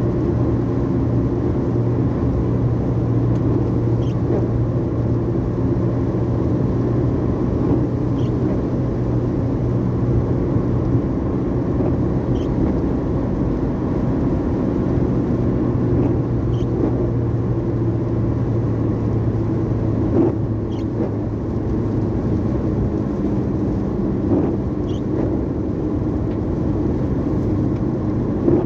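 Car interior noise while driving at steady highway speed: a steady engine hum and road noise, heard inside the cabin. The engine note shifts slightly about two-thirds of the way through, and there are a few light knocks.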